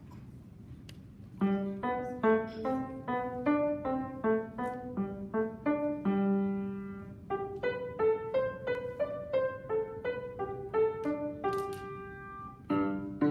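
Grand piano played solo: a steady run of separate notes starting about a second and a half in, with one longer held note midway and a brief pause near the end before the playing resumes.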